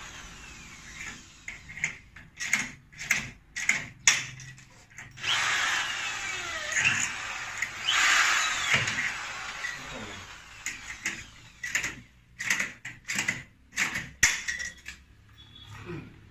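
Yellow cordless drill run in bursts against a metal door frame: two longer whirring runs about five and eight seconds in, between many short blips and knocks.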